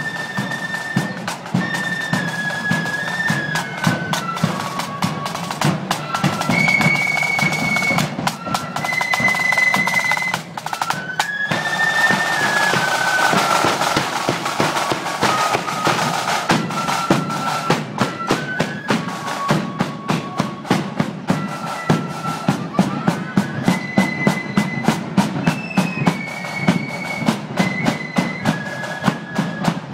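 Marching flute band playing a tune: high flutes carry the melody over rapid snare drumming and a bass drum. A cymbal crash comes about twelve seconds in, and near the end the bass drum beats steadily about twice a second.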